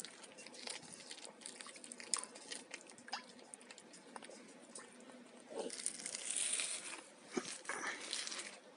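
A cat chewing and crunching on fish, with many small sharp clicks and smacks, and a louder crackly stretch a little past the middle.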